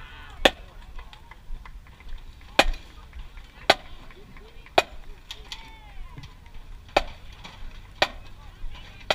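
Sharp, short clicks keeping a steady beat about once a second, with now and then a beat missing.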